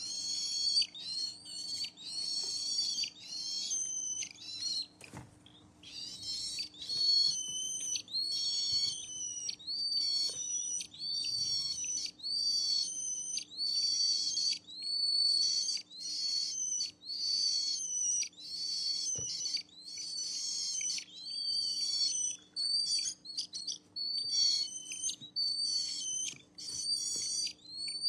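Pet parrot calling over and over: short, high-pitched chirping calls with quick pitch glides, about one a second, with a brief pause about five seconds in.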